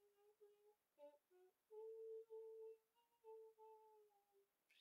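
Soft humming of a slow hymn melody, a line of held notes with short breaks, giving the tune just before the hymn is sung.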